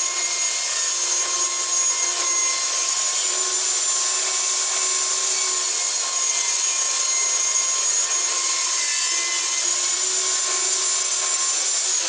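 Benchtop table saw running steadily with a high whine while ripping planed pallet-wood boards into 1-inch strips. It is switched off at the very end, and its whine starts to fall.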